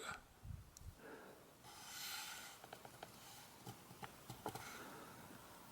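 Near silence: faint room tone, with a soft brief rustle about two seconds in and a few faint ticks later on.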